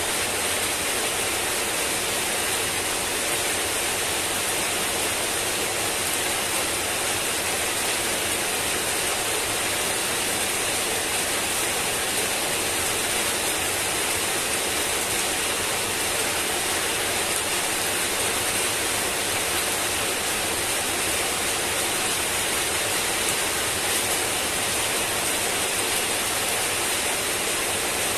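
Heavy rain falling steadily on wet paving and leaves, an even, unbroken hiss of drops.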